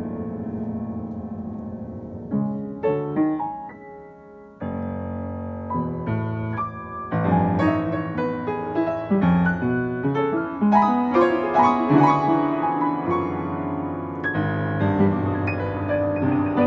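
Upright piano playing modernist classical music. A held chord fades, a few short, separate chords follow, and from about seven seconds in come dense, fast passages of many notes.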